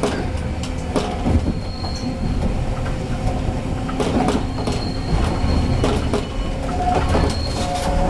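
Keifuku Electric Railroad (Randen) Kitano Line car running on its track, heard from inside the car: a steady rumble and hum with wheels clicking over rail joints, and three brief high squeals from the wheels on the curves.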